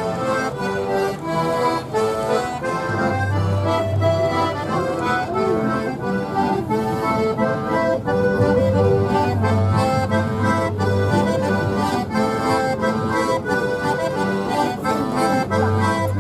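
Accordion music with a steady beat.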